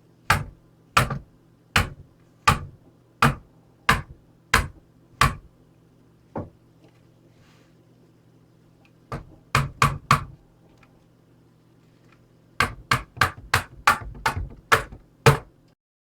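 Hammer blows, sharp separate knocks. A steady run of about eight comes a little under a second apart, then a few scattered strikes, then a quicker run of about nine near the end.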